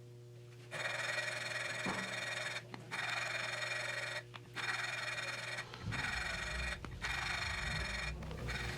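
Valve being lapped into its seat in a Triumph Spitfire cylinder head with grinding paste. A gritty grinding starts about a second in and goes in stretches of one to two seconds with short pauses. The lapping is to grind out the last pitting marks on the valve seat.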